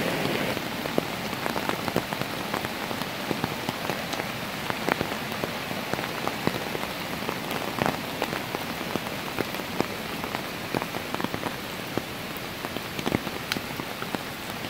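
Steady rain falling, an even hiss with scattered sharp drip hits close by.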